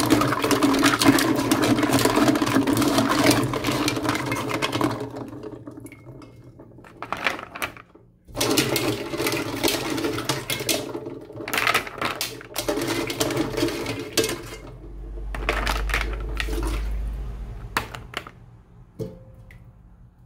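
Green mussels being swished and rubbed by hand in a basin of water: water sloshing and shells clattering against each other and the basin, loudest over the first five seconds and then in shorter bursts. A low rumble for a couple of seconds about three-quarters through, and a few sharp clicks near the end.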